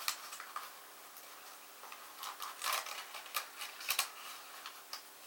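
Objects being handled by hand: irregular light clicks, taps and short rustles, busiest in the middle, over a faint steady room hum.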